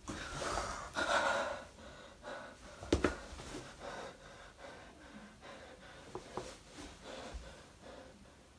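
A person's heavy breathing and gasps, loudest in the first second and a half. There is a sharp knock about three seconds in and a few faint clicks after it.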